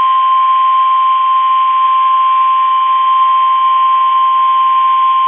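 NOAA Weather Radio 1050 Hz warning alarm tone: one steady, unbroken high tone over radio hiss, the alert that signals a warning message is about to be broadcast.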